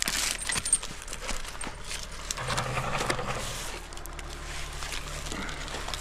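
Light metallic clinks and scattered clicks, typical of an arborist's carabiners and climbing hardware jostling as the climber moves in the tree.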